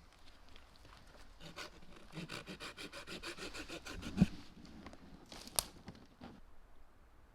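Quick, rhythmic scraping or rubbing strokes, about five to six a second, then a single thump about four seconds in and a sharp click a second or so later.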